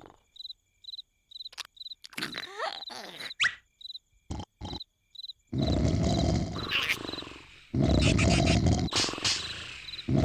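Cartoon crickets chirping in an even rhythm, with a few short sound effects, then loud snoring from a cartoon caterpillar starting about halfway through: two long snores, one after the other.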